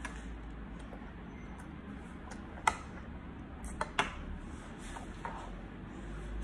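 A toddler's metal-headed spoon clicking against a bowl while scooping macaroni: three sharp clicks, one near the middle and two close together about a second later, over a low steady hum.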